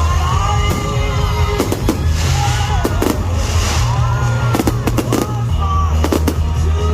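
Fireworks going off in a string of sharp bangs, several coming in quick clusters, over loud music with a heavy, steady bass.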